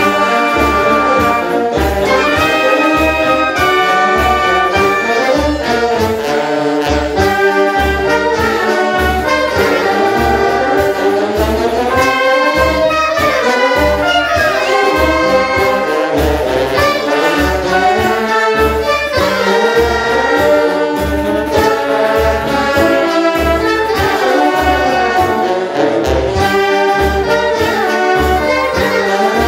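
Brazilian wind band playing a dobrado, a march: trumpets, trombones, saxophones and clarinets carry the tune over a steady march beat from tuba, bass drum and snare. The parts were recorded separately at home and mixed together.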